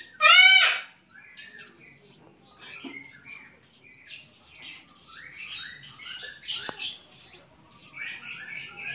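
Horsfield's bush lark (branjangan) singing in full song. It opens with one loud call with several harmonics, then a run of varied chirps, short rising and falling whistles and trills, and ends with a fast series of repeated high notes.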